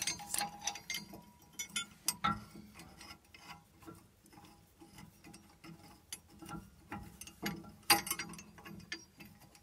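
Small metal clicks and clinks as washers and locking nuts are spun by hand onto the threaded ends of a Timbren helper spring's lower U-bracket under a truck's rear axle. The ticks are irregular, with a few sharper clacks, the loudest near the end.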